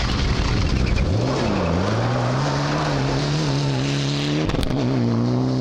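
Mitsubishi Lancer Evolution rally car driven hard on a gravel stage. The engine revs drop and climb again about a second and a half in, then hold high, and break briefly for a gear change near the end. Tyres crunch and spray gravel as the car passes close.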